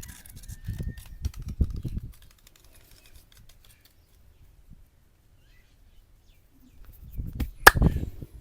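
Hands working a head massage: dull thumps and rubbing for about two seconds, a quiet stretch, then more thumps and a single sharp snap near the end.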